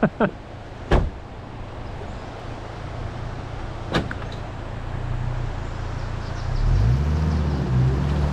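Vehicle engine running steadily at low speed, with a couple of sharp knocks, then picking up revs about six and a half seconds in as it pulls out from the boat ramp.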